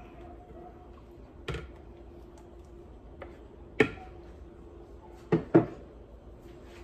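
Several short knocks and clicks of a spoon against a glass baking dish and a plastic blender jar while a thick corn-and-cream blend is poured out. The loudest two come close together about five and a half seconds in, over a faint steady hum.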